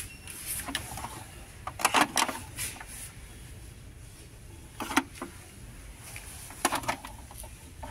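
Steady low hum of a shop, with a few short clicks and rustles from handling lipstick and balm testers, about two seconds in, at five seconds, and again near seven seconds.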